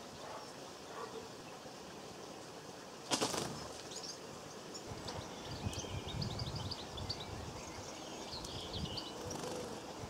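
A short burst of wingbeats about three seconds in as small birds take off from a seed feeder. From about halfway, high, quick twittering calls of small birds sound over a low rumble.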